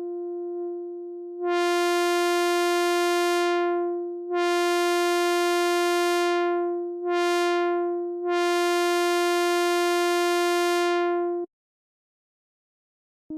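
Synthesizer imitating a commuter train horn: a held buzzy tone, soft at first, then blown as four bright blasts, long, long, short, long, the grade-crossing warning pattern, cutting off sharply near the end.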